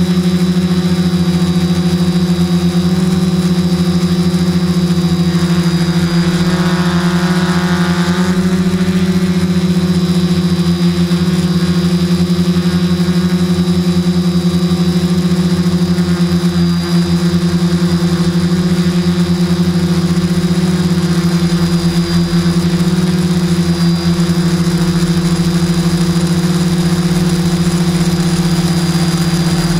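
Q450 quadcopter's motors and propellers humming steadily, heard through the camera mounted on the drone, the pitch wavering only slightly.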